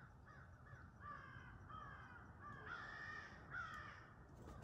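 Crow cawing, a run of faint, harsh caws one after another that stops about four seconds in.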